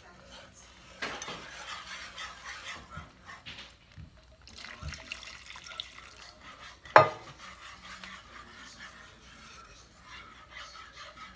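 Wire whisk stirring and scraping through sauce in a metal pan, in stretches, with liquid poured into the pan partway through. A single sharp clink of metal about seven seconds in is the loudest sound.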